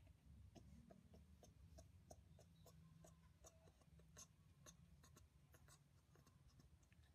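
Very faint, irregular scratching and soft clicks of fingers rubbing a puppy's fur under its chin, over a low background hum.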